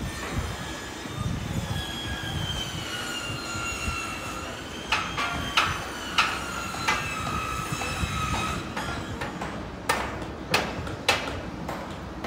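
A freight train rolling slowly past, with a low rumble and its wheels squealing in several high, slowly sagging tones. Sharp clacks come as wheels cross rail joints, a cluster a little before halfway through and another about four-fifths of the way through.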